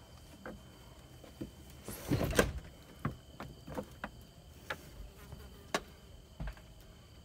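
A pig's hooves knocking and clicking on a wooden deck and a metal sliding-door track as she steps slowly through the doorway, with one louder scuffing noise about two seconds in. A steady high insect drone runs underneath.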